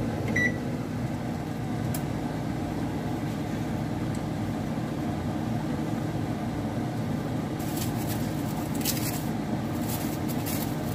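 Steady electrical hum of a running kitchen appliance, with a short high beep right at the start. From about two-thirds of the way in, light crackling and ticking join the hum.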